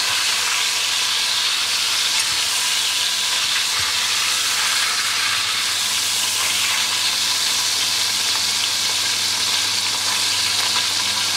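Beef searing in hot oil in a cast iron dish: a steady frying sizzle.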